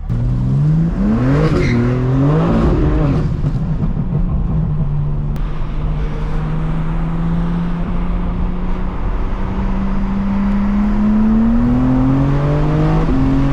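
BMW 430i's turbocharged 2.0-litre four-cylinder engine under hard acceleration. Its pitch climbs and drops back with quick upshifts in the first three seconds, then rises slowly through a long pull, with another upshift near the end.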